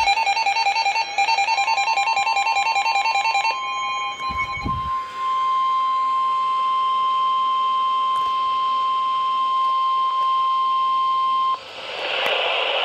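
Rapid electronic alert beeping for the first three and a half seconds or so. About one and a half seconds in, the NOAA Weather Radio 1050 Hz warning alarm tone begins: a single steady high-pitched tone that holds for about ten seconds and signals that a warning broadcast follows. The tone cuts off near the end, leaving radio static.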